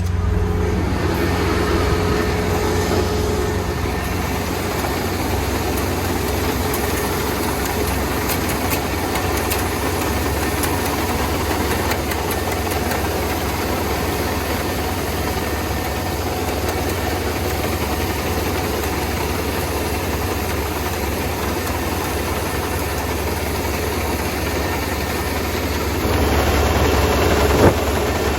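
Rice harvester's engine running steadily; it gets a little louder near the end, with a single sharp knock.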